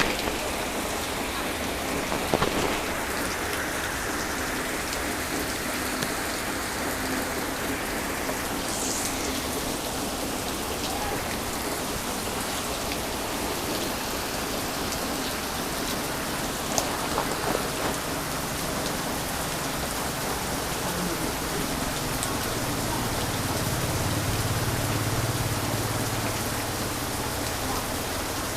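Heavy rain falling steadily, with a few louder drops striking a surface and a low rumble swelling near the end.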